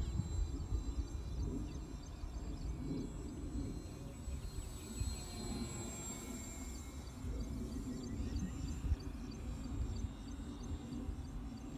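Wind buffeting the microphone in the open, with the faint high whine of a radio-controlled model airplane's motor that grows louder about halfway through as the plane passes overhead.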